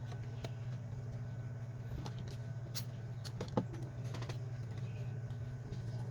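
Light clicks and taps of small tools and phone parts being handled during the Samsung Galaxy Grand Prime repair, the loudest about three and a half seconds in, over a steady low hum.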